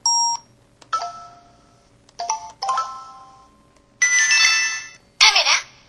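A mobile phone's built-in sound effects playing one after another: short electronic chimes and jingles with brief gaps between them, then a fuller, busier tune from about four seconds in.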